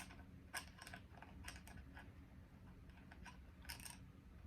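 Faint, scattered light clicks and taps at irregular intervals, over a low steady hum.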